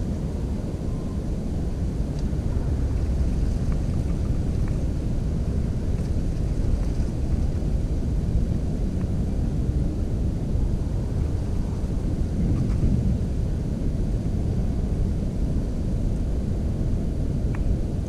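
Steady low rumble of wind buffeting the microphone, with a few faint clicks scattered through it.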